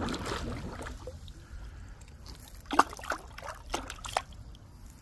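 Swimming-pool water sloshing and trickling, with a few short, sharp sounds about three and four seconds in.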